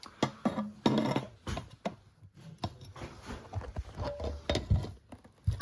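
Irregular knocks, clicks and scrapes of hand tools and metal parts being handled, with a short rustle about a second in.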